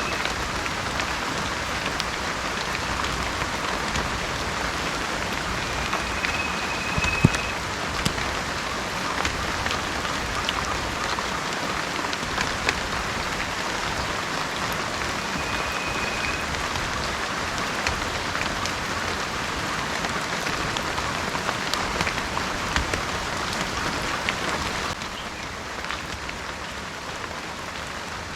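Steady heavy rain in a rainforest, with individual drops clicking, one sharp drop about seven seconds in, and two brief high whistled bird notes. The rain gets a little quieter near the end.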